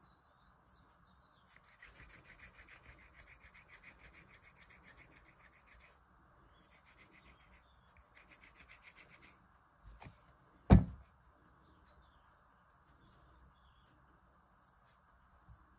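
Hands kneading and rubbing crumbly paneer dough against a stainless steel bowl, in two runs of quick, even rubbing strokes. A single loud knock about eleven seconds in.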